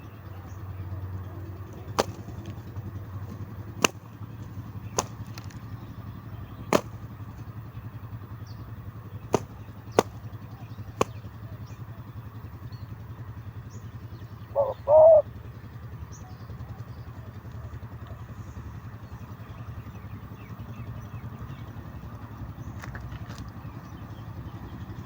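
A spotted dove gives one short two-part coo about halfway through, over a low steady hum, with scattered sharp clicks in the first half.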